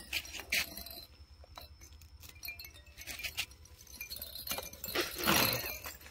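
Light clicks and clatter of plastic toys being handled and grabbed by young macaques, with faint tinkling chime-like tones. About five seconds in comes a louder rustling scrape as a monkey scrambles over the toys.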